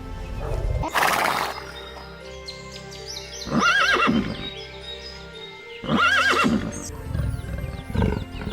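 A horse whinnying twice, each a wavering call of about half a second, over background music. There is a short rushing burst about a second in.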